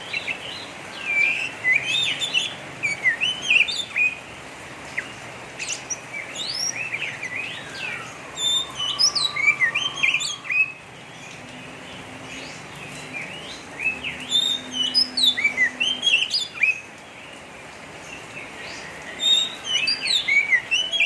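Oriental magpie-robin (kacer) singing a rough, fast chattering 'ngeriwik' song: bursts of quick rising and falling chirps a few seconds long, with short pauses between.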